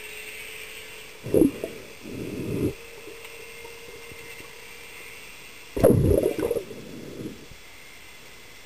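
Radio-controlled model submarine's electric motor and propeller heard underwater: a steady thin whine that fades about five seconds in. It is broken twice, about a second in and about six seconds in, by loud bursts of low rumbling noise.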